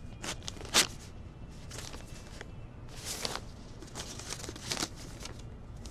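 Paper envelope being torn open and the folded letter inside pulled out and unfolded: a series of short paper tears and crinkles, the loudest a little under a second in.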